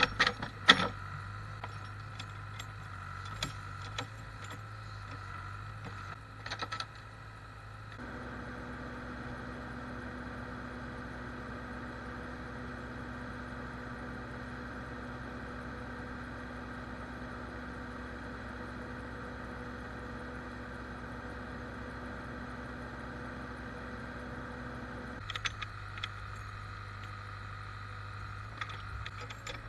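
Diesel backhoe engine running steadily, with sharp metal clanks and rattles from the bucket and its linkage as it digs in the first few seconds and again near the end. From about eight seconds in until about twenty-five seconds the engine goes on as a steadier, deeper drone with no clanks.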